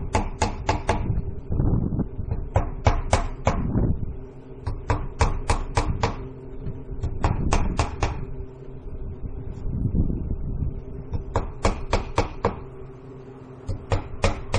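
A hammer driving nails into vinyl siding on a shed wall. The blows come in quick runs of four to six, several times over, above a steady low rumble.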